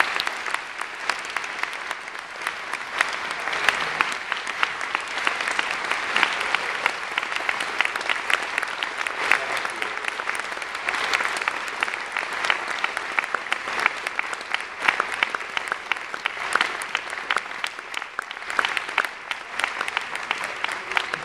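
Audience applauding steadily: many people clapping at once in a large hall.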